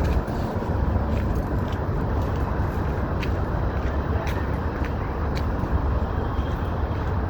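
Steady low rumble of city street traffic, with light ticks recurring every half second or so.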